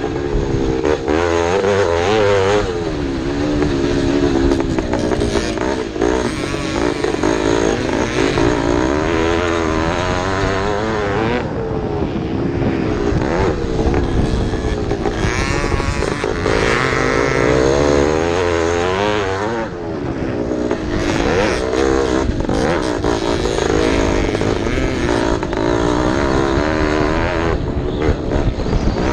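Vintage race car engine running hard, its pitch rising and falling again and again as it revs up through the gears and drops back for corners.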